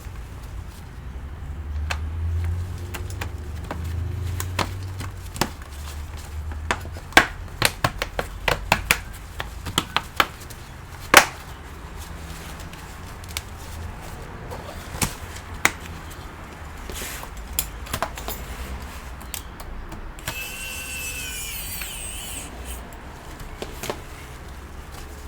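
Hands handling an open laptop: scattered sharp clicks and taps, thickest in the middle, over a low rumble. A brief warbling high-pitched sound comes about twenty seconds in.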